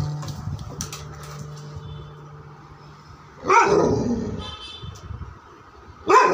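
Black Labrador retriever calling out twice, about three and a half seconds in and again near the end, each call a short loud bark-like yowl that slides down in pitch.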